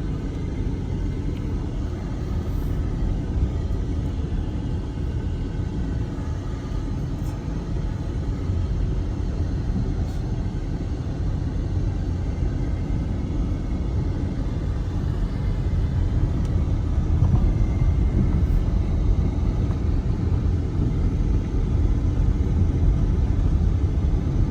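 Steady low rumble of a car on the move, heard from inside the cabin, growing a little louder in the second half.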